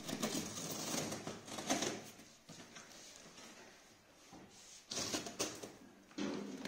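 Scissors slitting the packing tape along a cardboard box's seam: a scraping, tearing noise for about two seconds. About five seconds in come a few short rips as the tape and box flap are pulled open.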